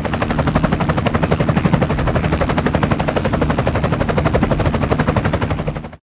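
Animated-intro sound effect: a loud, rapid, even rattle of pulses over a steady low hum, like gunfire or a rotor, that cuts off abruptly near the end.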